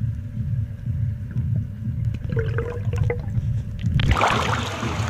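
Muffled underwater rumble picked up by a camera microphone submerged in a swimming pool, with a few faint clicks. About four seconds in, a sudden burst of splashing water noise comes in, far brighter and fuller.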